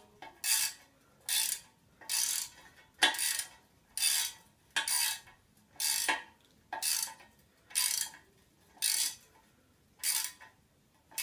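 Ratchet socket wrench tightening a nut on a scooter's brake bolt: a burst of pawl clicking on each back-swing, about once a second, a dozen strokes in all.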